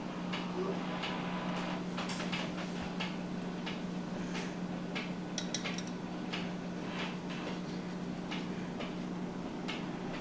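Light, irregular clicks and scrapes as long tweezers poke and tap moss out of a small clear vial over a plastic tub, over a steady low hum.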